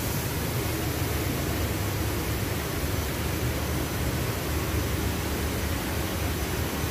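Steady background noise of a running factory floor, machinery and air handling together making an even rushing noise with a low rumble.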